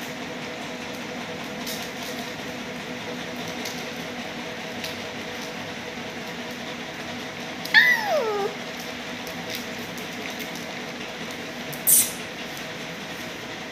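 A Labrador puppy gives one short whine that falls in pitch, about eight seconds in, over a steady low hum. A single sharp click follows a few seconds later.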